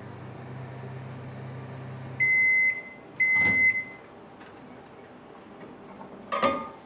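Microwave oven running with a low steady hum that stops about two seconds in, followed by two high beeps signalling the end of the heating cycle. A short clunk comes near the end.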